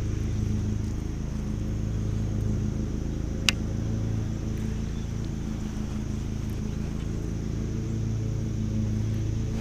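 Steady low mechanical hum of a motor or engine running at an even speed, with one sharp click about three and a half seconds in.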